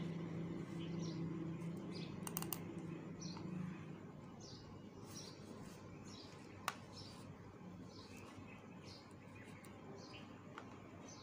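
Short high-pitched chirps from a small animal, repeating about once or twice a second, over a faint low hum that fades out after about four seconds. A single sharp click comes about two-thirds of the way through.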